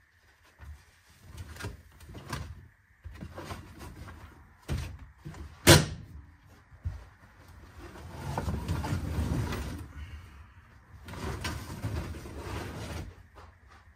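Knocks, clunks and rattles of parts being handled inside a car, with one loud sharp knock about six seconds in and two stretches of rustling and scraping.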